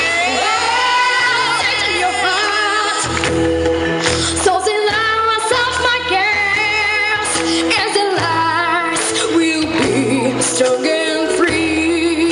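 A pop song sung over a backing track, with a bass line coming in about three seconds in.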